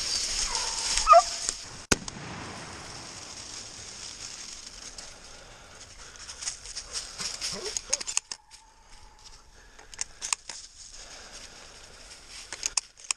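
Hound and wounded deer in dry leaf litter: high wavering animal cries in the first two seconds, a single sharp crack at about two seconds, then crunching footsteps and scuffling in dry leaves with many small clicks.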